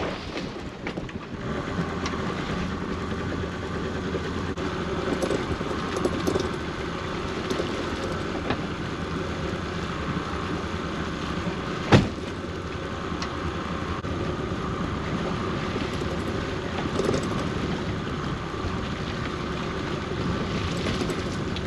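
Boat engine and pot-hauling winch running steadily while a string of lobster pots is hauled. A higher motor hum comes in about a second in, and there is one sharp knock about halfway through.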